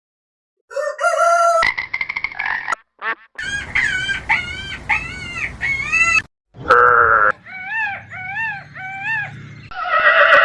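A run of short animal calls from several edited clips: after a brief silence, rising-and-falling calls repeat about twice a second in groups, with a harsher, noisier call near the end.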